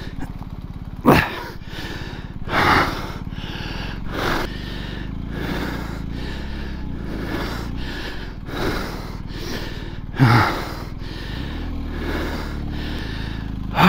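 A man breathing hard inside a motorcycle helmet, heavy breaths about a second apart with a few louder gasps (near the start, about three seconds in and around ten seconds), winded from hauling a heavy motorcycle out of a rut. Underneath, the BMW R 1250 GS Adventure's boxer-twin engine idles with a low steady hum.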